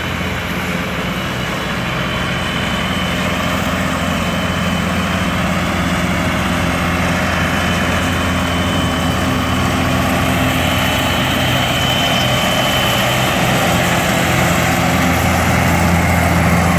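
John Deere tractor's diesel engine running steadily while pulling a New Holland mower-conditioner that is cutting grass, with a steady high whine over the engine. The sound grows slowly louder as the machine comes closer.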